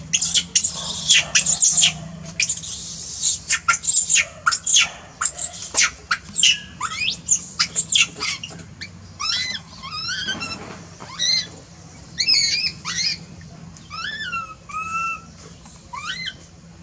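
Baby macaque screaming, a rapid run of shrill high-pitched squeals that about halfway through gives way to spaced, softer, lower calls that rise and fall in pitch.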